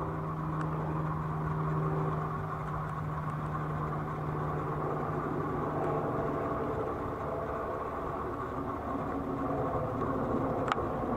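Jet airliner passing high overhead: a steady, distant engine rumble, with a low hum through the first half that fades about six seconds in. A single sharp click near the end.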